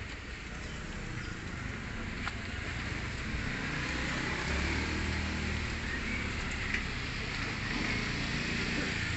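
A motor vehicle's engine running, a low steady rumble that grows louder over the first few seconds and then holds, with a couple of light clicks.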